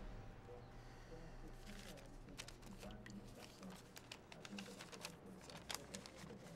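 Faint rustling and crinkling of a paper envelope being handled and opened, with short crisp crackles starting about two seconds in, over a low steady hum.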